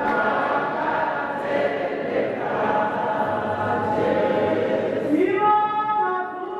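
Many voices of a church congregation raised together in a dense, overlapping chant-like sound; about five seconds in, one clear held note stands out above the crowd of voices.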